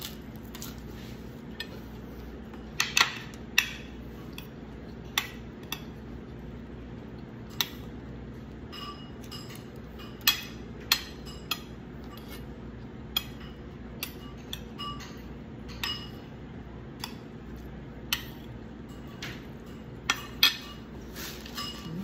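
Metal spoon clinking and scraping against a plate of food in scattered, irregular sharp clinks, some ringing briefly, over a steady low hum.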